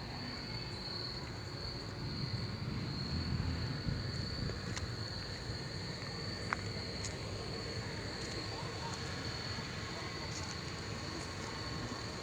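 Insects chirping steadily at one high pitch, over a low, even rumble, with a few faint clicks.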